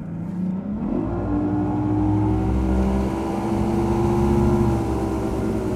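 Mercury OptiMax Pro XS 250 V6 two-stroke outboard throttled up hard to get the boat up on plane: the engine's pitch and loudness climb steeply over the first second, then it holds at a high, nearly steady run, easing off slightly near the end.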